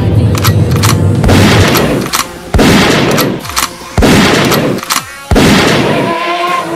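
Gunshot sound effects: two quick sharp cracks, then four heavy shots about a second and a half apart, each trailing off in a long echoing tail. A low car-engine hum runs under the start and stops after about a second and a half.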